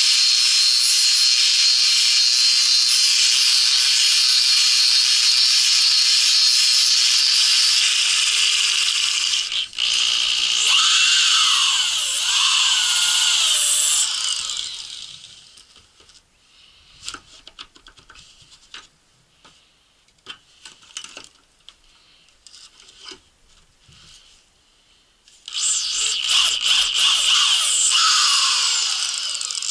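Handheld angle grinder running loud and steady, its pitch wavering as it bites into the work, then winding down about fourteen seconds in. About ten quiet seconds of scattered clicks and knocks from handling follow. A power tool then starts up loud again near the end.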